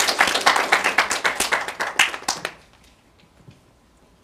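A small audience clapping, the claps dense at first and dying away about two and a half seconds in.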